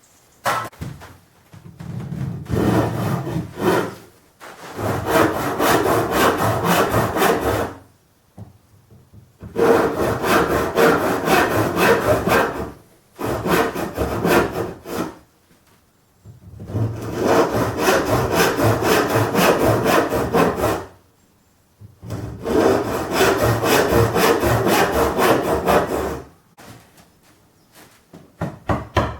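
Saw cutting through a pine board in quick back-and-forth strokes, in about six runs of several seconds each with short pauses between.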